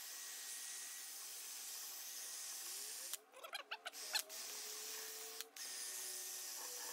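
Cordless drill spinning a wire wheel brush against the rusted front spindle of an Allis-Chalmers D17 tractor, a steady scratchy hiss as the bristles scour off rust. The sound breaks off briefly about three seconds in, with short rising squeaky tones, then carries on.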